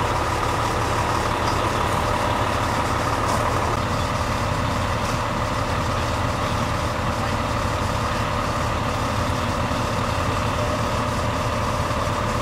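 A vehicle engine idling steadily, a constant low rumble with a hum that does not change.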